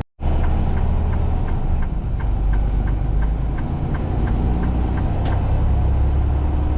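Semi truck driving at highway speed: steady low engine and road rumble. For the first few seconds it carries a quick, even ticking of about three ticks a second.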